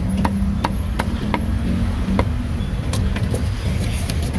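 A cleaver chopping roast meat on a chopping block: sharp knocks about two or three a second, then fewer and more spaced out after about a second and a half, over a steady low rumble.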